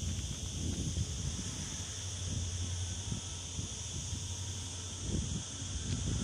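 Insects buzzing steadily in high-pitched bands, with wind gusting in low, uneven rumbles on the microphone.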